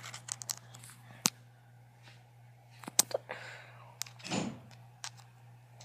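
Scattered sharp clicks and taps with a couple of short rustles, typical of a phone being handled close to its microphone, over a steady low hum.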